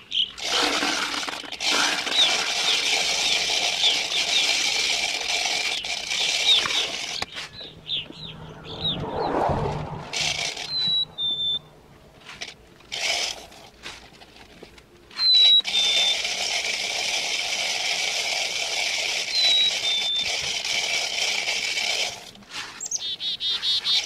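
Seeds pouring from a plastic jug through a cut-bottle funnel into a plastic-bottle bird feeder: a grainy hiss in two long runs, stopping for several seconds in the middle. A bird chirps a few times in short, falling two-note whistles.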